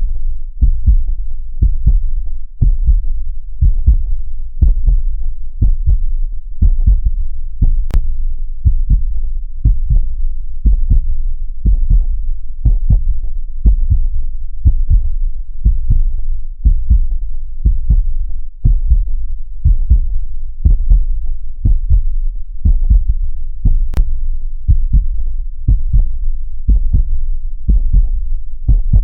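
Steady heartbeat, a low double thump (lub-dub) repeating evenly a little faster than once a second.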